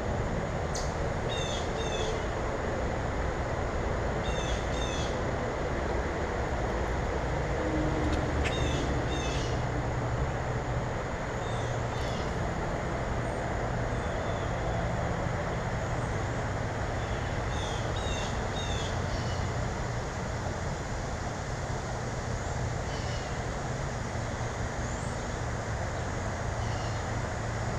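Small birds chirping in short, high-pitched repeated notes that come in clusters every few seconds, over a steady low rumble.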